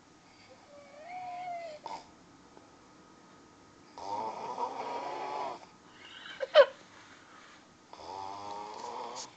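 A man snoring in his sleep, three rasping snores about four seconds apart, each lasting one to one and a half seconds. A brief, sharp rising squeak between the second and third snore is the loudest sound.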